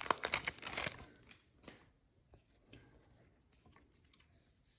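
A foil trading-card pack wrapper crinkling and tearing open during the first second, then faint rustles and light clicks of the cards being handled.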